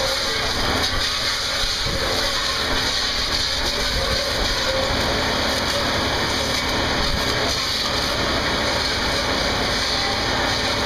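Steady hiss of high-pressure water jetting from fire hose nozzles and spraying against a hanging barrel, with a steady low rumble underneath.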